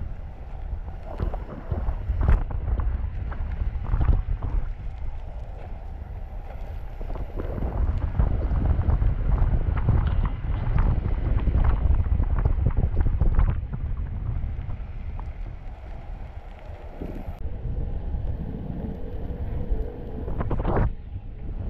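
Wind buffeting the microphone and tyre rumble from a KingSong S18 electric unicycle riding over pavement, with scattered knocks and rattles.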